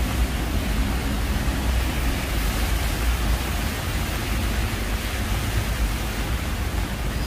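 Heavy rain falling on a city street, a steady hiss with a low rumble underneath.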